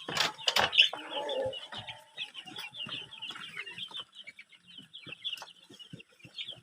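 Laying hens clucking around a drinker, with a few sharp knocks in the first second or so, over a constant run of rapid, high peeping.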